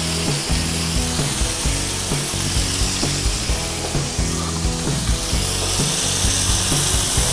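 Background music with a steady beat, filling a break between segments.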